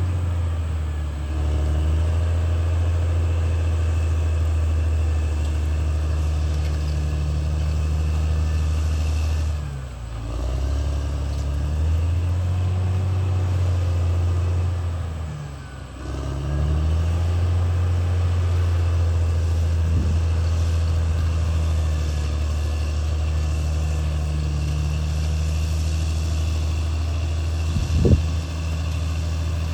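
Caterpillar D6R XL bulldozer's diesel engine running under load as a steady low drone. It sags twice and picks back up, about a third of the way through and again about halfway. A single short knock sounds near the end.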